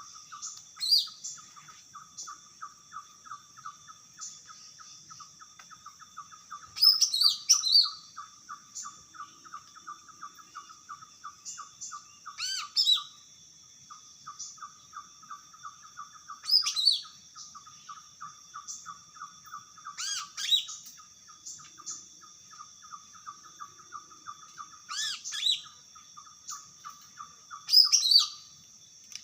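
Green leafbird (cucak ijo) singing: about seven loud, quick phrases of sweeping whistled notes, a few seconds apart. Underneath runs a continuous fast pulsing chirp at a lower pitch and a steady high hiss.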